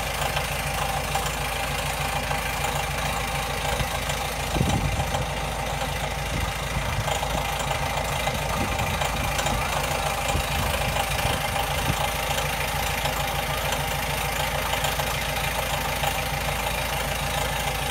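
Small Deutz diesel locomotive's engine idling steadily, with a brief louder thump about four and a half seconds in.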